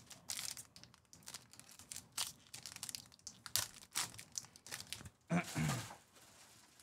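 Baseball card pack wrappers being torn open and crinkled, with cards handled, in a quick run of rustles and small clicks. A brief wordless vocal sound comes about five seconds in.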